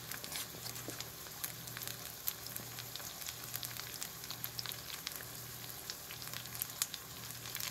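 Oil sizzling in a nonstick frying pan around a vegan corned beef loaf that is being crisped, with many small scattered crackles and pops over a steady hiss. A faint low hum runs underneath.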